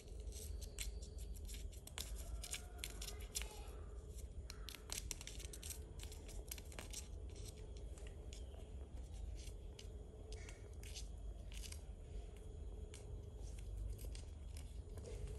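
A cat clawing and biting at a stick toy: irregular scratchy clicks and rustles as its claws and teeth catch the stick and the cushion, busiest in the first half and sparser later, over a steady low hum.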